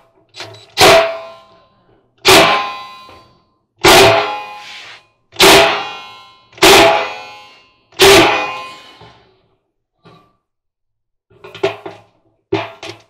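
Six loud metal clangs about a second and a half apart, each ringing out and dying away over about a second, as the sheet-metal rear bulkhead of a clothes dryer is struck while its drum-bearing hardware is fitted; a few lighter knocks follow near the end.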